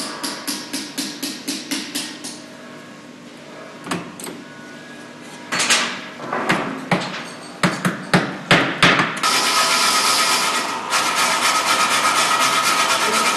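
Metalworking in a workshop: rhythmic scraping strokes, about four a second, for the first two seconds, then a run of sharp metal knocks and clanks in the middle. From about nine seconds in, steady machine noise with a held high tone takes over.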